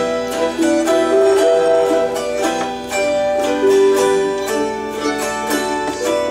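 Autoharp, Celtic harp and mandolin playing a Celtic tune together, plucked notes ringing over one another.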